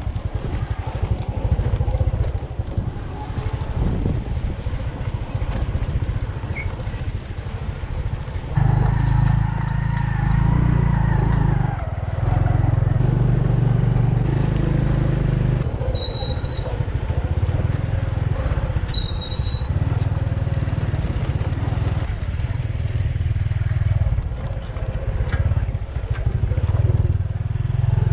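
Small motorbike's engine running while riding along a dirt track, heard from on the bike; its note shifts with the throttle and gets louder about eight seconds in.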